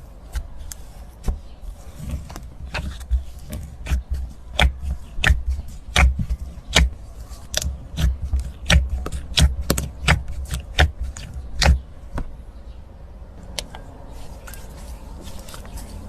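Slime being squeezed and pressed by hand, giving a run of sharp clicking pops, irregular at about two to three a second, that thins out to a few faint ticks after about twelve seconds.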